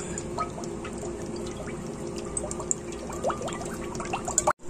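Cooking oil pouring in a steady stream into a pot, with short rising gurgles as the pot fills. It cuts off suddenly near the end.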